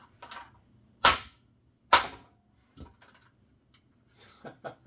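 Plastic housing of a wireless headset base station struck hard against the floor to jar its snapped-together case apart: two loud, sharp whacks a little under a second apart, with fainter knocks and plastic clicks around them.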